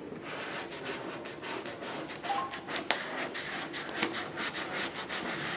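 A vinyl decal and its paper backing being handled on car paint during dry application: a run of dry rubbing and paper crackling, with a sharper click about three seconds in.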